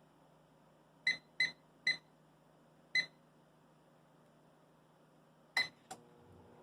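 Microwave oven control panel beeping four short times as its buttons are pressed, then a louder beep with a click and a second click as it is started, after which the oven begins running with a low hum near the end.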